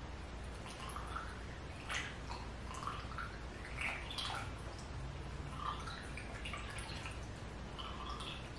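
Water poured from a plastic jug into the intake ports of a Ford 1.0L EcoBoost three-cylinder cylinder head, trickling and gurgling in short irregular splashes and drips: the water test for leaking intake valves.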